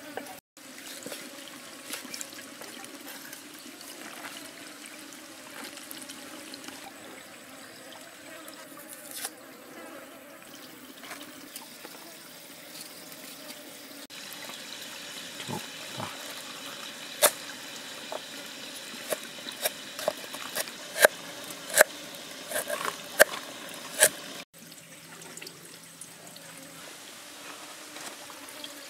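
Steady trickle of stream water, with a knife chopping on a wooden chopping block: light cuts at first, then a run of about nine sharp, loud chops in the second half.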